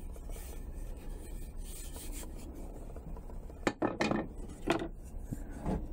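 A sanded wooden workpiece handled on a workbench: faint rubbing and scraping of wood, then a few sharp wooden clacks about four seconds in as it is set down.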